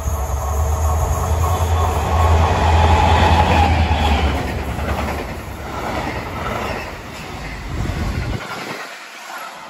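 Freight train passing close by: diesel locomotive ME 1526 goes past first with a deep engine drone for about four seconds. Its wagons follow, rolling and clattering over the rails, and the sound thins out near the end as the last wagons pass.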